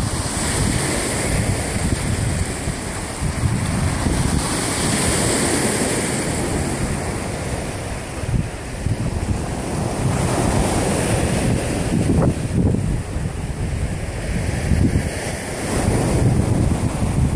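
Lake waves washing onto the shore in repeated swells, with wind buffeting the phone's microphone as a low rumble.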